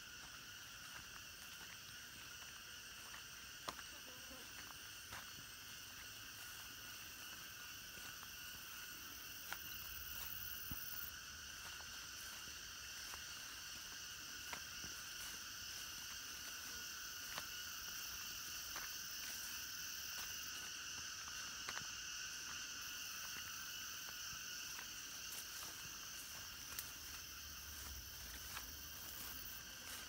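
Faint, steady chorus of insects trilling at several high pitches at once, swelling a little in the middle. Scattered soft clicks and crunches of footsteps on the path.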